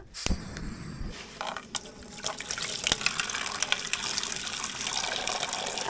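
Water poured in a stream into a metal camping cooking pot, splashing and filling it, growing louder toward the end. A few light clicks come before the pouring.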